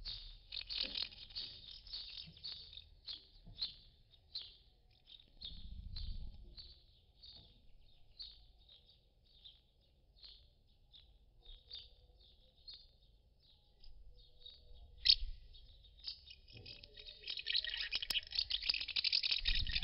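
Common house martins twittering at their mud nests: a run of short, high chirps, dense at first, thinning out through the middle, then busier and louder over the last few seconds. A single sharp click about fifteen seconds in.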